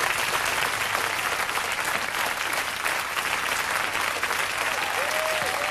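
Studio audience applauding steadily, with a cheer or two near the end.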